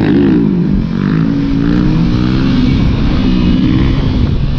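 Motorcycle engine running loudly under way, its pitch repeatedly rising and falling with throttle changes, over a steady rushing noise.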